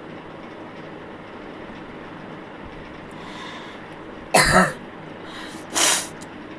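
A person coughs hard in a quick double burst about four seconds in, then lets out a shorter breathy burst of air a second later, over steady background noise.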